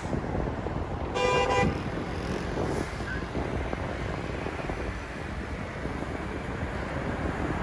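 Steady road-traffic noise, with one short vehicle horn toot about a second in.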